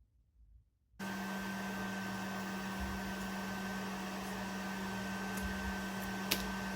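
A small electric blower switched on about a second in, then running steadily: a rush of air over a motor's hum, with one sharp tick near the end.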